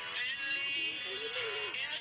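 Background music: a song with a processed, synthetic-sounding singing voice over an instrumental backing.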